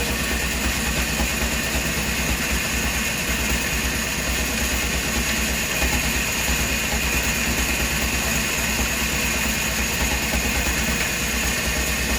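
Wood-cutting machinery running steadily: a constant engine-like hum over a deep, pulsing low rumble.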